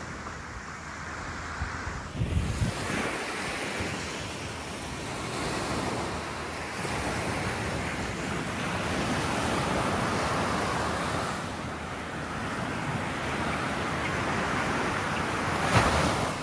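Ocean surf washing onto a beach, swelling and easing off over several seconds, with wind gusting on the microphone about two seconds in and most strongly near the end.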